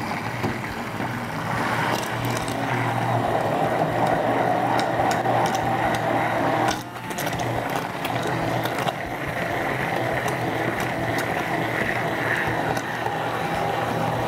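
Hand-held immersion blender running steadily in a stainless steel saucepan, emulsifying melted chocolate, cream and butter into a ganache. Its steady motor hum drops briefly about halfway through, then runs on.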